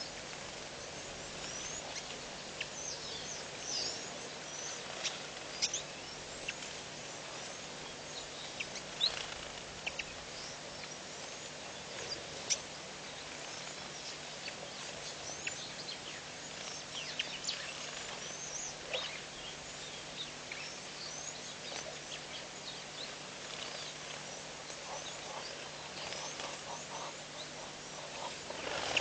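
Wild birds chirping and calling now and then, short high chirps scattered throughout, over a steady outdoor hiss and a faint low hum.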